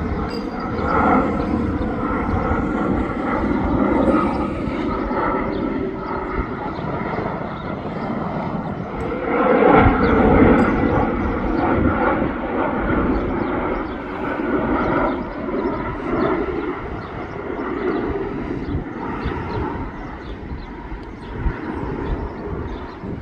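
Jet airliner's engines, a steady rush with a few whining tones, swelling to its loudest about ten seconds in and then slowly fading.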